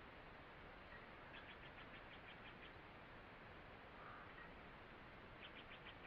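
Faint forest ambience: a small bird gives a quick run of about ten short, high notes twice, the second run near the end, over a steady faint hiss.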